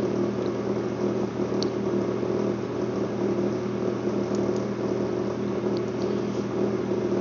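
Steady low electrical or machine hum over an even hiss, with a few faint clicks.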